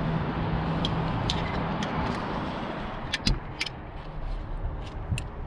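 Metal seat-belt buckles and latch plates clicking and clinking several times as they are handled, over a steady rumble that slowly eases off.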